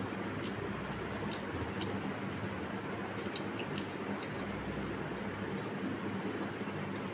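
Fingers squishing and mixing basmati rice with curry on a plate, with scattered small wet clicks, over a steady background hiss.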